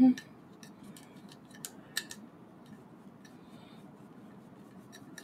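Scattered light clicks and ticks of a small screwdriver working screws into the metal parts of a model's skull, with the parts knocking lightly against each other as they are turned in the hands.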